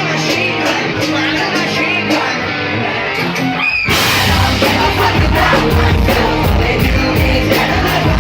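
Live rock band playing with a singer's voice over it. About four seconds in, a sung or yelled note swoops up and the full band comes in louder and fuller, drums and bass included.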